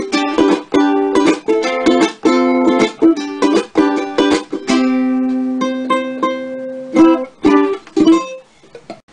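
Ukulele strummed in quick rhythmic chords. About halfway one chord is left ringing for a couple of seconds, then a few last strums fade out near the end.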